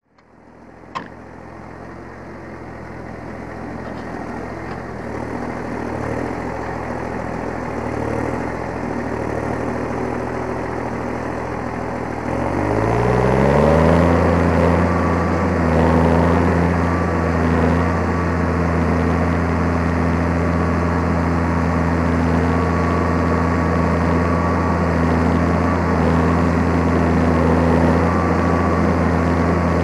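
New Holland T7030 tractor's six-cylinder diesel engine running, heard close to its exhaust stack and fading in at the start, with a single click about a second in. About thirteen seconds in the revs rise and then hold steady, louder, as the tractor works at ploughing.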